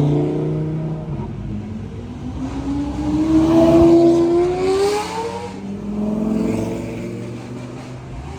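A car engine accelerating, its pitch climbing steadily for about four seconds, then a second, lower pull that fades.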